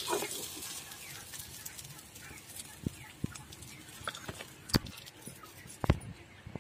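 Metal spatula clicking and tapping against an iron wok and a plate as fried climbing perch are lifted out, a few sharp knocks with the loudest about three-quarters through and near the end. The hiss of the frying oil fades in the first second.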